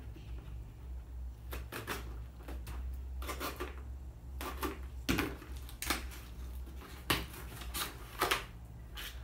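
Scissors cutting through packing tape and cardboard on a small cardboard box, followed by the box's top being pulled open by hand: an irregular run of short, crisp snaps, scrapes and rustles.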